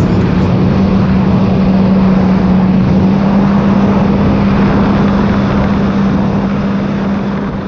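Sea-Doo GTR 230-series jet ski, with its supercharged Rotax 1630 ACE three-cylinder, running steadily at speed under water and wind rush. It has one steady droning engine note and fades away near the end.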